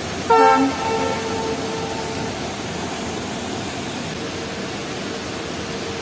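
Train horn sounding about a third of a second in. It is one held note that dips slightly at its start, is loudest for the first couple of seconds, then carries on faintly, over a steady rushing noise.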